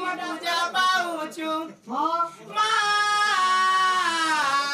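A performer's singing voice in a Danda Nrutya folk song: a few short, sliding phrases, a brief break, then a long held note through the last couple of seconds.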